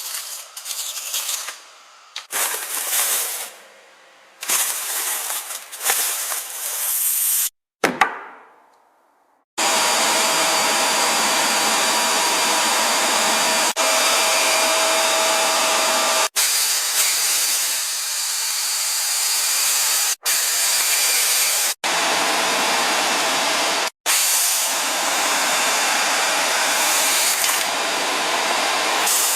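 Steady spraying hiss, like a jet of air or water, heard as several clips joined by abrupt cuts. The first few seconds are shorter, uneven bursts of hiss with gaps between them.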